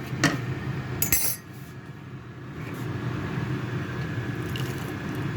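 A metal utensil clinking against a pot or dish twice in the first second or so, over a steady low hum.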